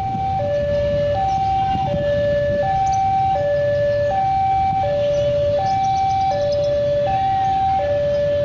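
Railway level-crossing warning alarm sounding as a train approaches: an electronic two-tone signal switching between a higher and a lower note about every two-thirds of a second, over a low steady background noise.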